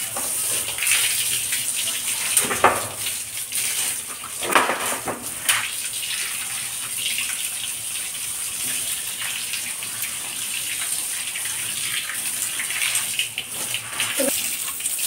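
Water streaming from a hose onto a German Shepherd's wet coat, splashing on a woven cot and a tiled floor: a steady hiss of spray. A few sharper sounds come about two and a half, four and a half and five and a half seconds in.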